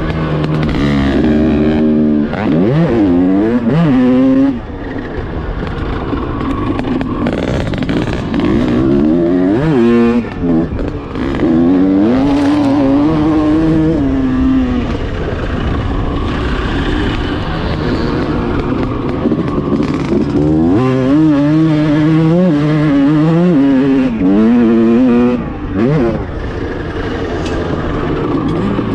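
Honda CR250 single-cylinder two-stroke motocross engine heard on board, revving up and dropping back over and over as the rider works the throttle. The throttle shuts briefly three times, at about four, ten and twenty-five seconds in.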